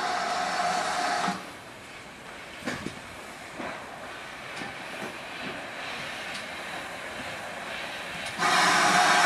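GWR 5600 class 0-6-2T steam tank locomotive no. 5619 hissing loudly with escaping steam, which cuts off abruptly about a second in. A few light knocks follow as it rolls slowly over the points, and the loud steam hiss starts again near the end.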